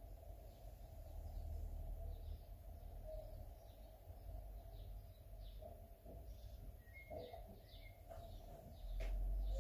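Faint bird chirps, scattered short notes, with two brief clearer whistles about seven seconds in, over a low steady background rumble.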